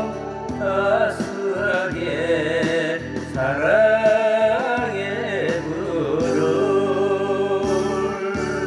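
A person singing a Korean love song over instrumental backing. The voice bends and wavers in pitch through the first half, and steadier held tones carry the last few seconds.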